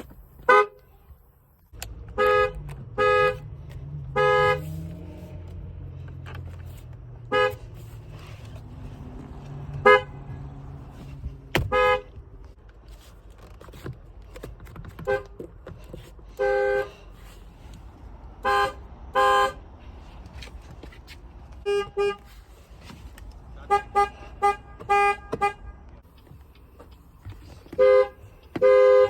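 Car horns being honked on several different cars, in short toots: single beeps, pairs, and quick bursts of rapid taps, each horn sounding a steady chord-like note. A low background rumble runs between the honks.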